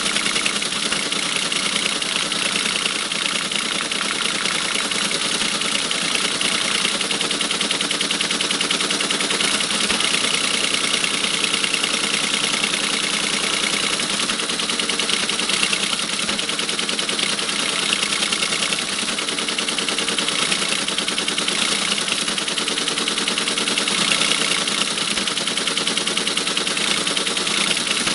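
Teletype Model 33 ASR printing without pause: the steady, rapid mechanical clatter of its typing unit striking characters onto the paper, with the carriage stepping along and returning between lines.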